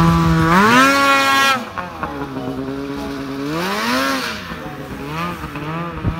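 Polaris Pro RMK 800 snowmobile's two-stroke engine revving up sharply and holding high, then, farther off and quieter, revving up again and falling away as the sled climbs a snowy slope.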